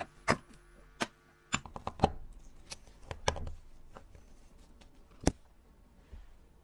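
Sharp, irregular clicks and taps of small metal watchmaker's tools and watch parts being handled, about a dozen strikes with the loudest near the start, around two seconds in and about five seconds in.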